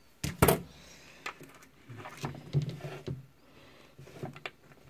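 Handling noises on a wooden desktop: a sharp knock about half a second in, then scattered light clicks and taps as wires, a small circuit board and tools are handled.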